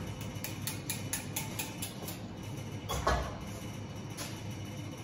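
Wire whisk clicking against the sides of a small saucepan at about four to five strokes a second, beating the last of the butter into thick, freshly cooked crème pâtissière. About three seconds in there is a single louder clunk of kitchenware being set down or moved.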